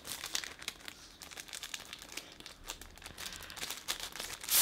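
Tissue paper crinkling and rustling as a wallet is slid out of its wrapping, with a louder crackle near the end.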